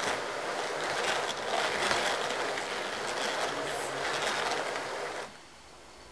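Walther 'Rudy' drum carder turning as camel hair is fed onto its needle-clothed drums: a steady scratchy whirr that stops about five seconds in.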